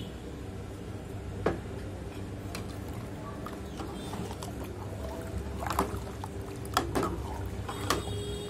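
A steel ladle stirring boiling dal in a metal pot, with liquid sloshing and sharp knocks of the ladle against the pot, one about a second and a half in and several more in the second half, over a steady low hum.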